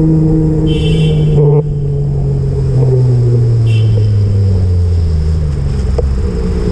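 Motor vehicle engine running with a strong steady hum whose pitch slowly falls, as when it slows down. A brief high hiss sounds about a second in, and a shorter one a few seconds later.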